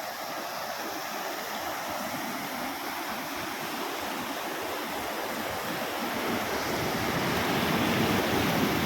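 Sea waves washing onto the shore, a steady rushing surf that swells louder in the second half.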